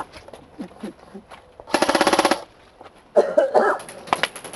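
Airsoft electric rifle firing a short full-auto burst of well under a second, about two seconds in, followed a second later by a brief voice.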